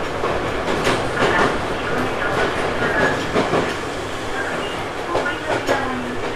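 Ohmi Railway 900 series electric train (car MoHa 901, a rebuilt Seibu 101 series) running between stations, with steady running noise and the wheels clacking irregularly over rail joints.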